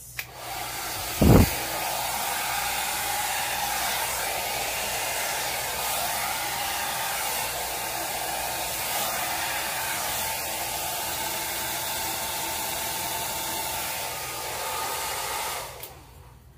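A handheld hair dryer switches on and runs steadily, blowing air across wet pour paint on a canvas. It is loud enough that it was called "a little loud" beforehand. There is a single thump about a second in, and the dryer switches off near the end.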